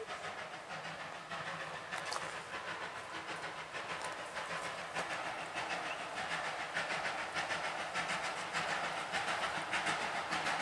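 Steam locomotive working out of a tunnel toward the listener, its exhaust beating in a steady chuff over a hiss of steam, growing louder as it approaches.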